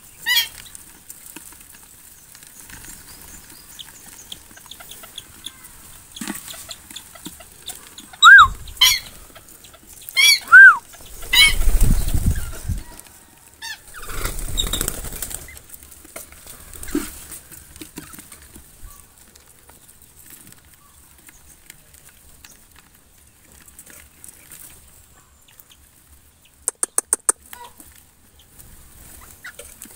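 White-breasted waterhens in an aviary giving a few short, loud clucking calls about a third of the way in, with wings flapping twice in the middle. A quick run of about six ticks comes near the end.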